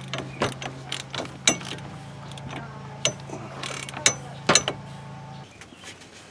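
Half-inch drive ratchet on a Lisle inner tie rod tool, clicking and clinking in irregular strokes as a new inner tie rod is tightened into the steering rack.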